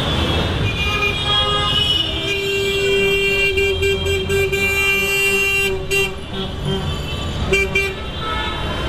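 Street traffic with a vehicle horn: one long, steady honk held for about four seconds starting about two seconds in, then a second, short honk near the end.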